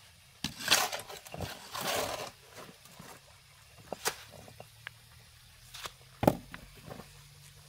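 Shovel scraping and pushing wet concrete over stones for about two seconds, then smaller scuffs and a few sharp knocks of metal tools against stone.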